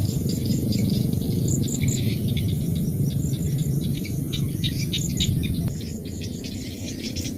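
Rice-field chorus of insects and birds: many short, rapid chirps overlapping continuously, over a steady low rumbling noise. The whole chorus gets a little quieter about six seconds in.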